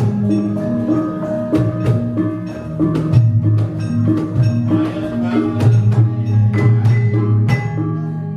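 Javanese gamelan playing: bronze mallet-struck keys and gongs holding a steady melody, with frequent sharp clacks of the puppeteer's percussion struck against the puppet box.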